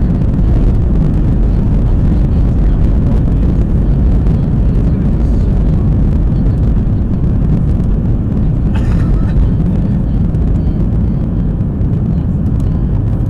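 Boeing 737-700's CFM56-7B turbofan engines at take-off thrust, together with the rumble of the runway roll, heard from inside the cabin over the wing: a loud, steady, deep rumble.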